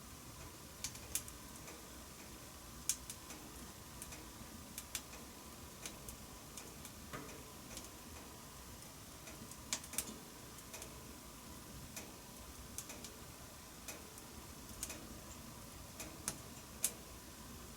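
Wood fire crackling in a wood-burning stove: irregular sharp pops and snaps of varying loudness over a steady low hiss.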